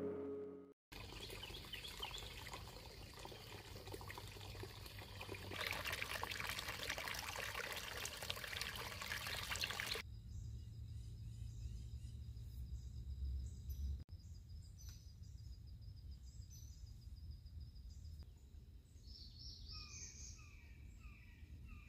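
Small campfire burning with a steady hissing crackle that gets louder about six seconds in. From about ten seconds on, quiet woodland with birds chirping, ending in a quick run of bird calls near the end.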